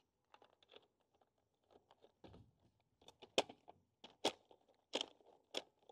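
Plastic toy-bullet ammo belt clicking and rattling as it is pushed into the feed of a plastic toy blaster: faint light clicks at first, then five or six sharper plastic clicks about a second apart.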